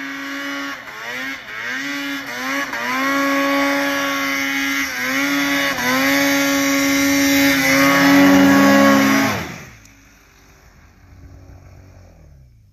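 Arctic Cat Alpha One snowmobile's two-stroke engine revving hard through deep powder, its pitch dipping and climbing again with each throttle change. It drops off abruptly about nine and a half seconds in as the sled stops.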